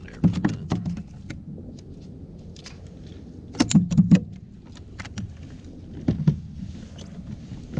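Scattered clicks, knocks and light rattles of a small fish being landed and handled on a plastic kayak, with a quick cluster of louder knocks about three and a half seconds in.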